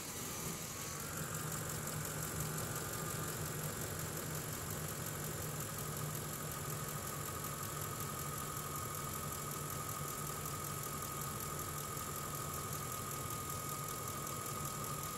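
2004 Ford F-150's engine idling steadily, heard at the open engine bay, with a steady high whine over the idle from about a second in.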